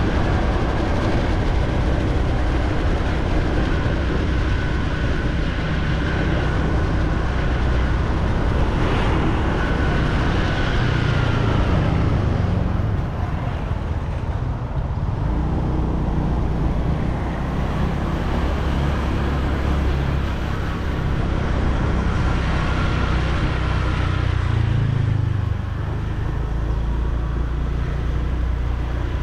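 Riding a motor scooter through town traffic: a steady mix of the scooter's engine and road and traffic noise, easing off slightly twice.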